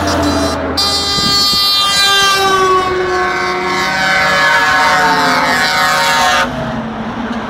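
Tipper trucks' multi-tone air horns sounding for about six seconds as the convoy passes, the pitch sliding downward before cutting off suddenly. Heavy diesel truck engines and tyres run underneath.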